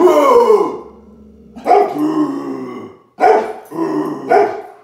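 A dog barking and growling several times: a drawn-out call that falls in pitch, then four shorter barks.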